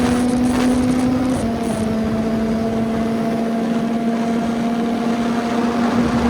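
CFMOTO 675NK's 675 cc three-cylinder engine running at a steady speed, its note dipping slightly about a second and a half in and then holding.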